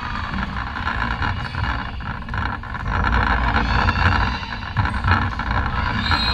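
Steady din of a large indoor sports hall between volleyball rallies: a low rumble under a haze of distant voices and small knocks, echoing in the hall.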